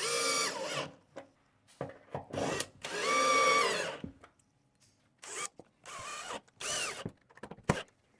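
Power drill run in a series of short trigger bursts, its motor whine rising and falling in pitch with each squeeze, the longest burst lasting about a second near the middle.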